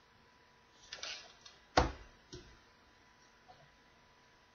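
Handling of a plastic Hyper Tough toy cordless drill: a brief rustle about a second in, then one sharp plastic click, followed by a couple of faint clicks. The toy's motor is not running.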